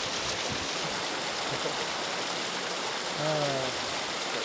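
Creek water rushing steadily, with a man's short relaxed sigh falling in pitch a little after three seconds in.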